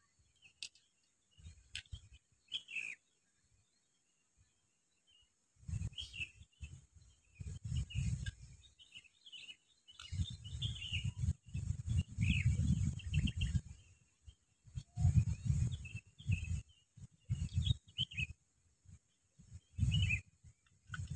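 Birds chirping and calling in short scattered bursts. From about five seconds in, gusts of wind rumble on the microphone in irregular surges and are the loudest sound.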